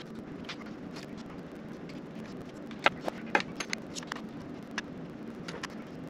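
Scattered light clicks and taps as hands and small tools handle parts inside an opened MacBook Pro, with the sharpest two about three seconds in. A steady low hum runs underneath.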